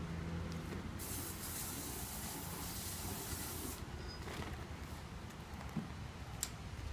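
A steady hiss that starts about a second in and stops abruptly nearly three seconds later, over a faint low hum.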